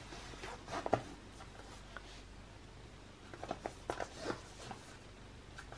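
Faint scrapes and light clicks of a small wristband package being handled and tried open on a tabletop: one click about a second in, then a loose run of them between about three and five seconds.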